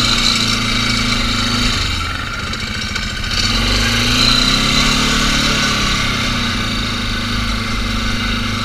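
ATV engine running at low, steady riding speed over a muddy trail, its pitch rising and falling gently midway.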